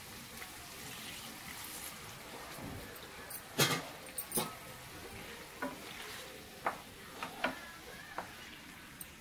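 Cooking in a pan: a spoon stirring and knocking against the pan about nine times, the loudest knock about three and a half seconds in, over a low steady sizzle.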